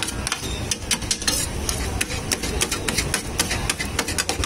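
Metal spatula and knife clinking and scraping on a steel tray as shredded chicken is tossed with sauce and cabbage: many quick, irregular clicks over a steady low rumble.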